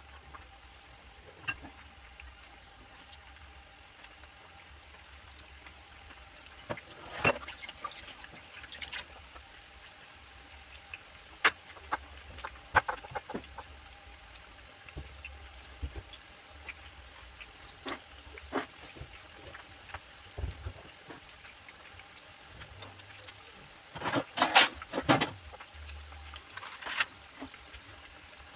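Grated-potato balls deep-frying in hot oil in a pan: a steady sizzle with scattered sharp pops, and a quick cluster of them near the end.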